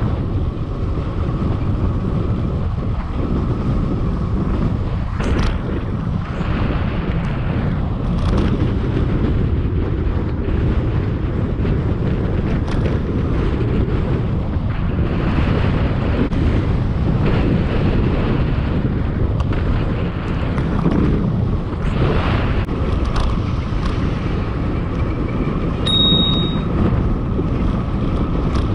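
Wind buffeting the microphone of a camera worn by a rider moving at speed on an electric bike: a steady, loud, low rumble of air noise. A faint steady whine comes and goes, and there is a brief high beep near the end.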